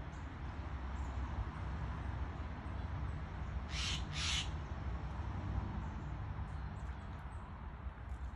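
Steller's jay giving two harsh calls about half a second apart, midway through, over a steady low background rumble.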